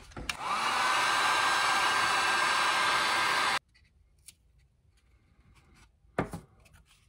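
Heat gun switched on, its fan spinning up with a rising whine into a steady blowing hiss; it runs about three seconds and cuts off suddenly. A brief knock follows near the end.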